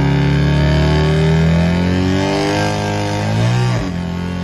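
Vehicle engine heard from inside the cab, accelerating with its pitch climbing steadily, then dropping sharply a little before the end at a gear change and pulling up again.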